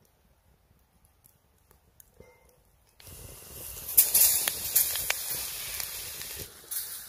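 Near silence with a few faint ticks, then, about three seconds in, hot oil in a cast-iron skillet starts sizzling loudly as coated chicken pieces are laid in, with sharp pops and crackles.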